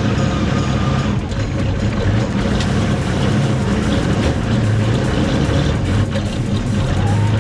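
1969 Oliver 1650 industrial tractor-backhoe's engine running steadily under work, with a thin higher whine in the first second or so.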